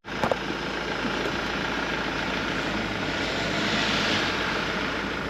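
Van driving: steady engine and road noise, with a short click just after the start.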